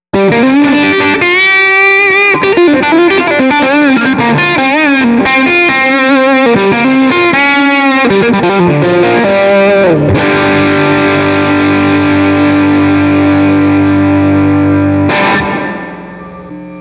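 Electric guitar played through a John Landgraff Clean Boost pedal into an amp: a single-note lead line with string bends and vibrato, a slide down, then a chord left ringing for about five seconds before it is cut off.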